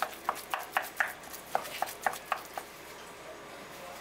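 A wooden spoon tapping against a glass mixing bowl as it breaks up raw ground beef: about ten short, sharp knocks over about two and a half seconds.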